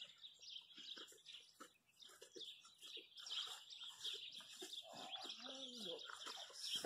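Small birds chirping continuously in the background, with faint clicks and rustles. About five seconds in comes a short low sound that bends up and down in pitch.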